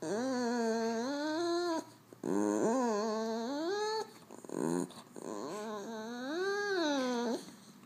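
French Bulldog whining in three long, wavering, drawn-out calls, with a short yip between the second and third.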